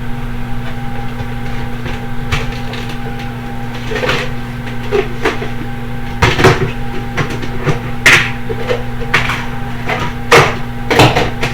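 Kitchen clatter as things are put away: cupboard doors and objects knocked and set down in a string of separate clunks at uneven intervals, over a steady hum.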